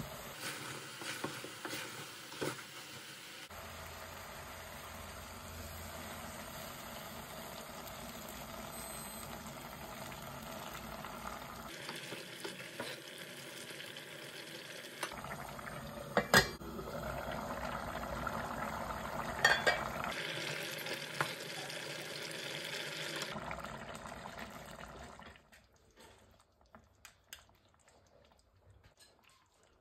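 Saucepan of runner bean and dried fish curry sizzling on a gas hob while it is stirred with a wooden spoon, with a few sharp knocks of the spoon against the pot. The sound stops abruptly about 25 seconds in, leaving only a few faint clicks.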